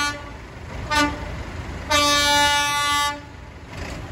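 A tractor's horn honking at one steady pitch. An earlier blast ends right at the start, a short toot follows about a second in, then a blast of just over a second. A low engine rumble runs underneath.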